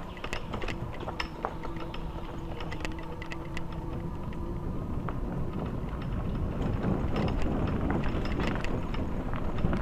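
Bicycle being ridden over a rough track: a steady rumble of tyres and air with frequent rattles and clicks from the bike, getting louder about halfway through.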